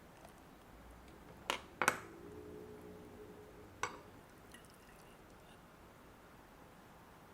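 Two quick knocks of something hard being handled, followed by a short ringing or pouring tone for about two seconds, then one more knock.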